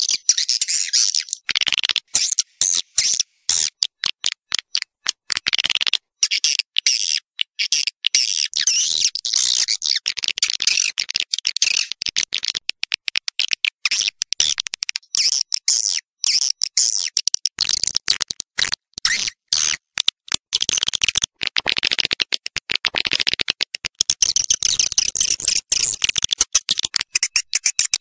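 Swiftlet calls: a dense, continuous, high-pitched chatter of rapid twitters and clicks. It is a lure recording meant to call swiftlets into a nesting house and get them to roost.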